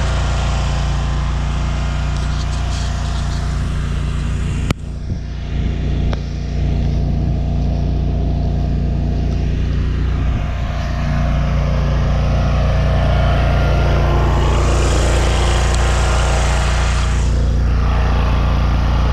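Vehicle driving, with steady engine and road noise. A sharp click comes about five seconds in, after which the noise drops for several seconds and then settles back to a steady level.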